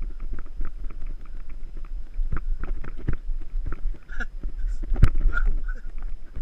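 Footsteps scuffing and crunching on loose gravel and stones in an irregular run, with a sharper knock about five seconds in, over a steady low wind rumble on the microphone.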